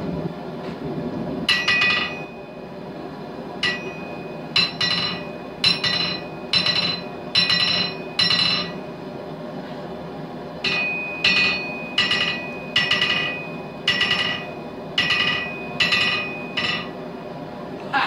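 A hammer striking a steel anvil about twenty times in two runs with a short pause between, each blow ringing with a clear high tone. Underneath, the forge runs with a steady low roar.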